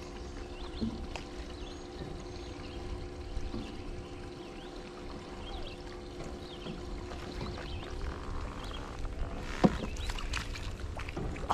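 Riverside ambience: birds chirping here and there over a steady low hum and rumble, with one sharp knock near the end.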